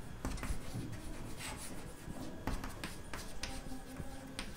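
Chalk writing on a blackboard: short scratching strokes and light taps of the chalk against the board.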